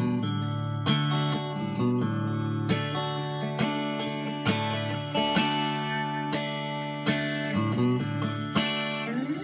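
Fender Telecaster electric guitar strumming chords, a strum about every second with the chords ringing on between them.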